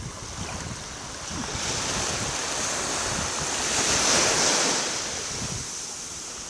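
Surf breaking and washing up a beach, swelling to a peak about four seconds in and then falling away, with wind buffeting the microphone.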